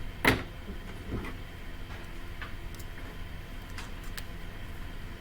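A sharp knock about a third of a second in, a softer knock about a second in, then a few faint clicks, over a steady low hum.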